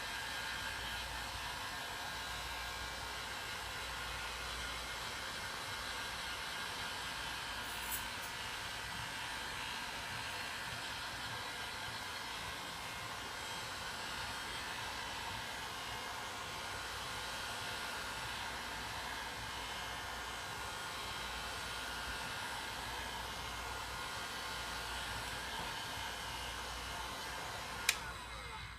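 Hot-air blower running steadily with a whirring fan whine, heating an iPhone 6s display to soften its adhesive before prying it open. It switches off with a click near the end.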